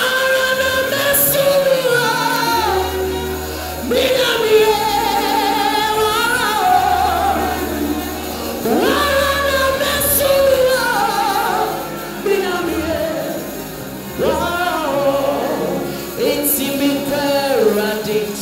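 A man singing gospel into a handheld microphone, holding long notes with vibrato, over a live band with a steady bass line.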